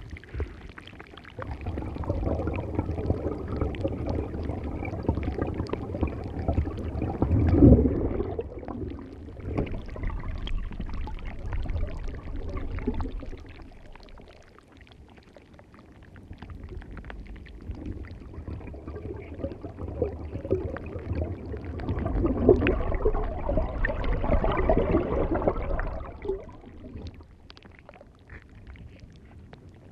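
Ocean waves washing up a beach: two long swells of rushing water, each building and fading away over about ten seconds.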